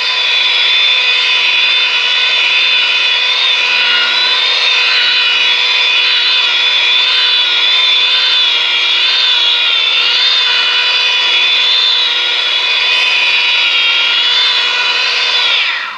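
Corded rotary polisher running at a low speed, about 600 rpm, as its pad works compound into the car's paint. It makes a steady electric-motor whine that wavers slightly as the pad is moved over the panel, then winds down and stops near the end.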